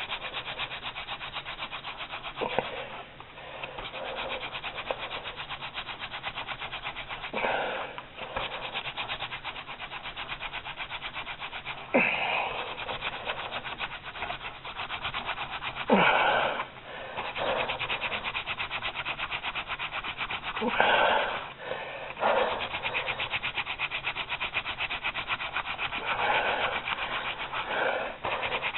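Wooden spindle of a friction-fire hand drill rubbing fast and evenly into a wooden baseboard, with brief louder breaks every few seconds. The drill is already making good smoke.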